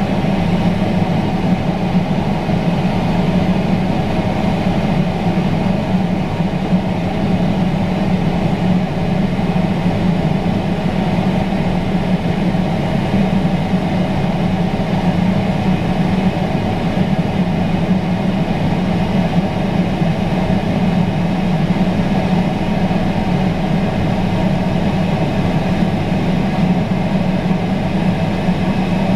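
Heavy diesel farm machinery running steadily: a constant low engine drone with a hum of driven machinery above it that does not change for the whole stretch.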